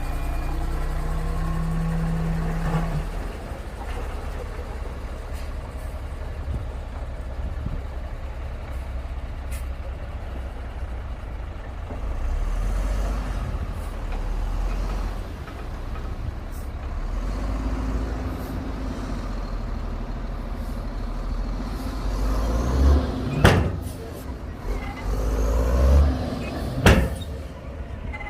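Heavy diesel earthmoving machinery running steadily under load, with two sharp, loud knocks a few seconds apart near the end.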